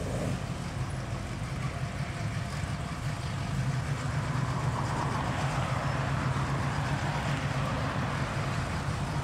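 Car engines running as a queue of classic cars pulls away, a C3 Corvette's V8 driving past close so that the sound swells from about four seconds in.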